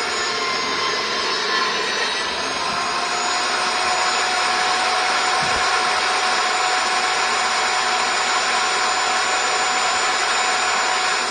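Table saw running steadily with its blade cutting a rabbet along a long wooden beehive board, a constant whine over the cutting noise.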